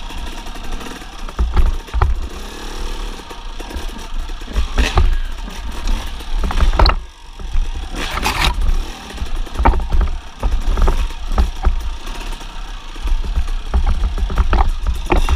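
A 1999 Suzuki RM250 two-stroke dirt bike running while it is ridden over rough trail, with repeated knocks and clatter from the bike over bumps. There is a brief lull about seven seconds in.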